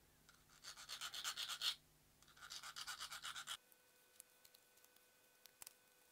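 Small hand file scraping in quick short strokes, about eight a second, in two runs of about a second each. After that come only a few faint clicks of small parts being handled.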